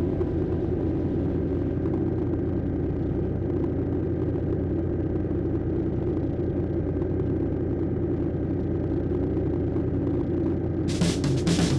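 Engine running steadily at a constant speed, a low even rumble.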